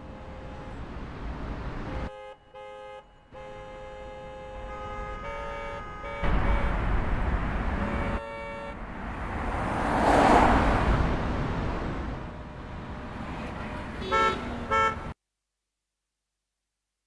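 Sound effects generated in the Krotos Studio Genesys sound pack: held pitched tones over a noisy bed that change abruptly several times, a whooshing swell that rises and falls about ten seconds in, then two short horn-like beeps before it cuts off.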